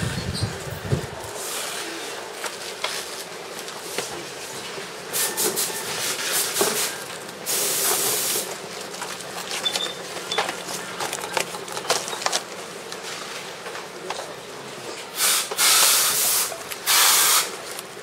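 Tablet assembly line at work: scattered light clicks and clatter of parts and hand tools over a steady background hum, broken by several loud bursts of hiss, each about a second long, one near the middle and two close together near the end.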